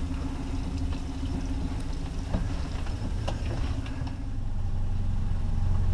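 Boat's outboard motor running steadily at low speed, its hum growing louder in the second half, with a couple of light knocks.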